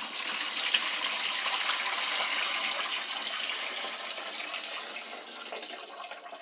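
Water poured from a bucket into the wash tub of a portable twin-tub washer, splashing steadily and fading toward the end.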